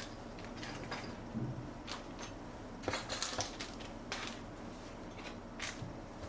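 Irregular clicks, taps and rustles of a mechanical keyboard and its packaging being handled, a few sharp knocks scattered among softer rustling.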